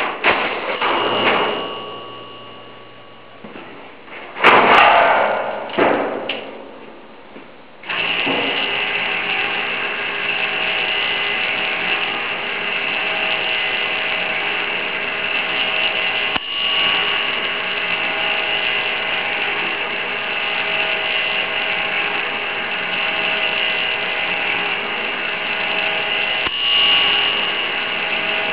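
Restored Tokheim model 39 gasoline pump: a few metallic clunks and rattles as its register is reset and the nozzle is lifted off the hook, then about eight seconds in the pump's electric motor starts and runs with a steady hum while it dispenses and the computer wheels turn.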